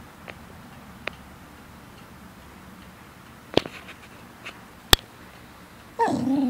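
An Australian terrier starts a 'talking' vocalization near the end: a pitched whine-like sound whose pitch bends and falls. Before it, a few separate sharp clicks sound over low room noise.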